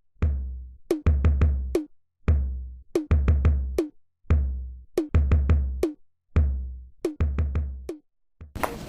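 Music: a drum beat of bass drum and snare hits, played in short repeating bars of about a second with brief gaps of silence between them.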